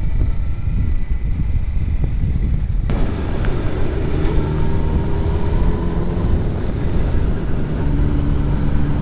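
Suzuki GSX-R 750 K4 inline-four motorcycle engine running while riding, with wind noise. The engine note shifts a little in pitch, changing in character about three seconds in.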